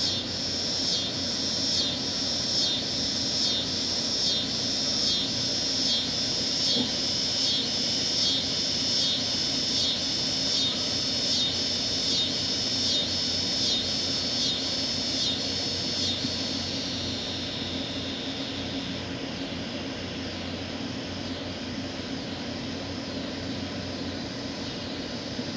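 Insects calling in a chorus: a high-pitched pulsing, about two pulses a second, over a steady high hiss. The pulsing stops about two-thirds of the way through and the hiss goes on.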